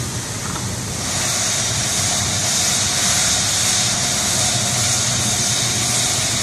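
Air-driven fiberglass chopper gun spraying chopped glass strands and resin into a boat hull mold: a loud, steady hiss of compressed air over a constant low hum, growing stronger about a second in.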